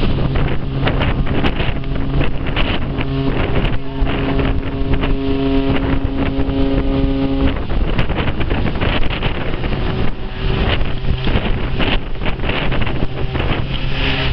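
Ships' horns sounding a salute: a low blast, then a longer, higher-pitched blast of about four seconds, then after a short gap another low blast. Wind buffets the microphone throughout.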